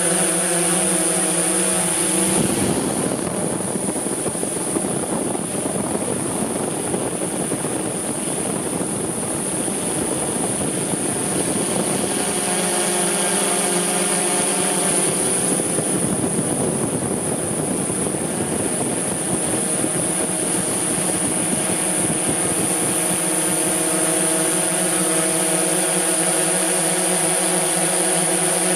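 DJI S1000 octocopter's eight motors and propellers droning steadily, heard close from the aircraft itself, with a high steady whine over a layered low hum. The hum's tones shift about two seconds in and again about twelve seconds in as the motor speeds change.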